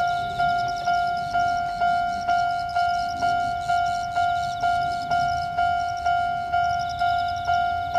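Electronic railway level-crossing warning bell dinging steadily at about two strikes a second, the signal that a train is approaching the crossing.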